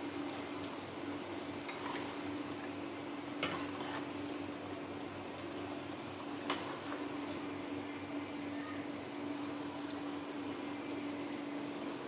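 Mutton masala sizzling in oil in a clay handi as its liquid cooks off during the bhuna stage, with a steel ladle stirring it and two sharp clinks against the pot, about three and six seconds in. A steady low hum runs underneath.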